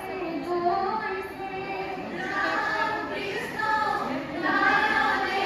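A group of women singing a biya naam, a traditional Assamese wedding song, together in a flowing melody.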